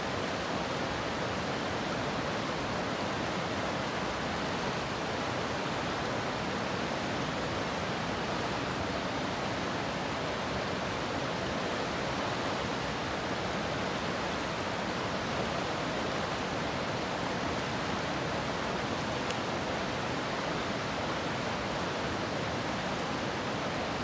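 Fast-flowing river water rushing steadily past the bank, an even noise that does not change.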